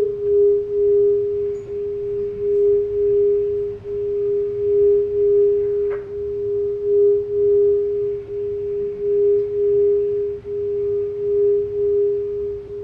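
A single sustained pure drone tone a little above 400 Hz, held steady and unbroken while wavering in loudness, part of the production's sound design. A short faint click comes about six seconds in.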